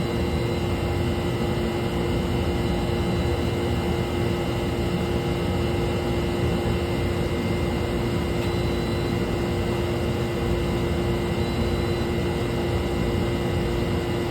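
Steady drone of plant-room machinery: a constant hum with a few unchanging tones over it.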